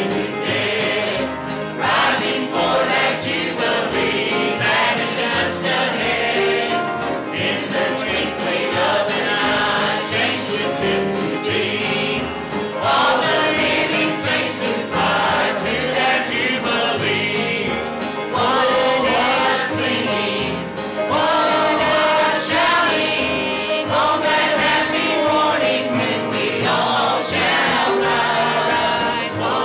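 A group of voices singing a hymn together with instrumental accompaniment, continuous throughout.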